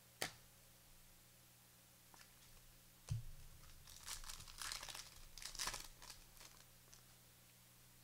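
Faint handling of a trading-card pack: a click, a soft thump about three seconds in, then the wrapper crinkling and tearing open for a couple of seconds.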